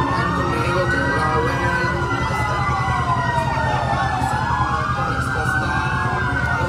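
Wailing sirens of a slow procession of emergency vehicles: one siren rises and falls about once every four seconds while a second holds a higher, slowly wavering tone. Engine rumble runs underneath.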